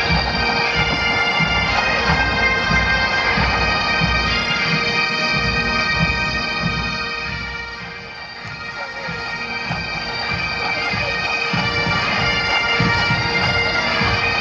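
Massed Highland bagpipes and drums playing a march. The pipes' drone holds steady under the chanter melody, with a regular drum beat below. The sound dips briefly about halfway through, then returns.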